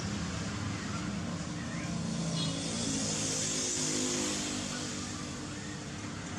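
An engine running steadily in the background, its low hum wavering in pitch around the middle.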